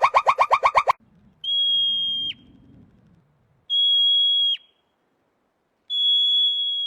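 Animal calls from two clips: a rapid pulsing call, about ten pulses a second, cuts off about a second in. Then come three long, steady, high whistled notes about two seconds apart, each ending with a quick drop in pitch.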